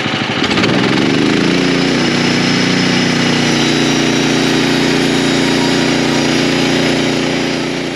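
Portable bandsaw sawmill's gas engine revving up from idle about half a second in, then running steadily at speed as the blade cuts through a spruce cant.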